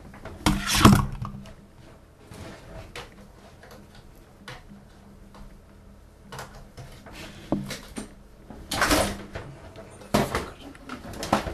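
Handling noises from plugging in a power supply: a scatter of knocks and clicks, with the loudest bangs about a second in and again twice near the end.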